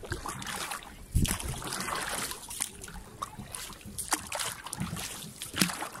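Paddles working a small rowboat: irregular knocks against the hull and splashing water, with the heaviest knock about a second in.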